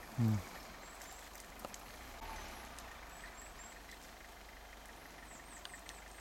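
Hyundai Galloper SUV's engine running faintly as it drives away up a snowy track. About a quarter second in there is a short, loud sound that falls in pitch, and a few faint high chirps come later.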